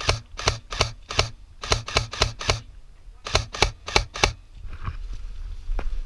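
Airsoft gun fired in a quick string of single shots: about a dozen sharp clacks in uneven groups, stopping about four seconds in, with one more shot near the end.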